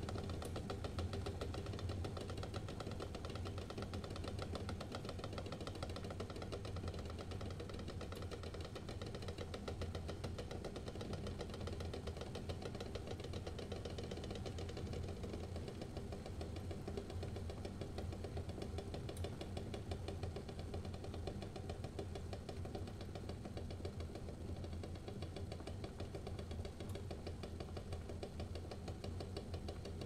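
Eggs boiling in a stainless steel saucepan of water: steady bubbling with a dense, rapid patter of small knocks, over a low steady hum.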